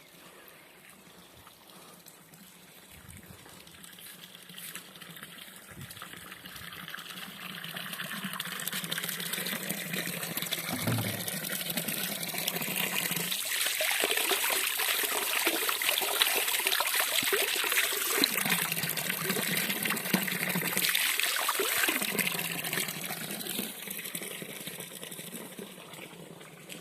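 Running water, a steady rush that grows louder through the first half, then eases off near the end.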